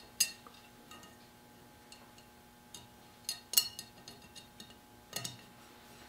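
Small metal part clicking and clinking against the steel of double-barrel shotgun barrels as it is fitted by hand. There are a few sharp metallic clicks with light ticks between them, the loudest about three and a half seconds in.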